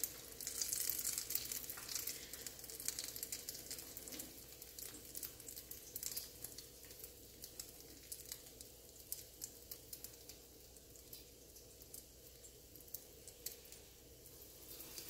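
Egg-battered stuffed poblano peppers (chiles rellenos) frying in shallow hot oil: a faint sizzle with fine crackling, busiest in the first few seconds and thinning out after.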